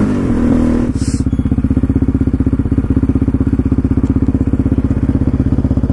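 Yamaha Raptor 700R quad's single-cylinder four-stroke engine slowing as the quad comes to a stop, then idling with a steady, rapid pulse.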